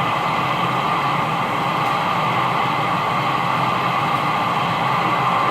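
CB radio receiver hissing with steady band static through its speaker between transmissions, with no voice on the channel.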